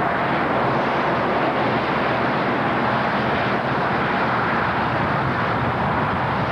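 Diesel locomotive running steadily as it comes out of a tunnel: a low engine drone under a broad rushing noise.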